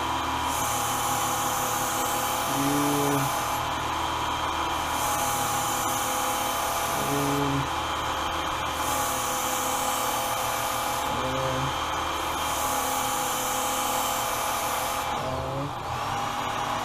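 Work Sharp Ken Onion Edition belt sharpener running steadily while a blade is drawn across its abrasive belt in four passes of about three seconds each, each pass adding a high grinding hiss. Near the end the motor's pitch dips briefly and comes back up.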